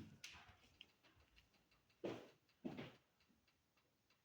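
Mostly quiet, with three soft knocks (one at the start, two more a little after two seconds in) and a few faint ticks.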